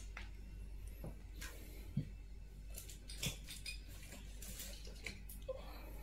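A few scattered light clicks and knocks of small objects being picked up and handled, over a low steady hum.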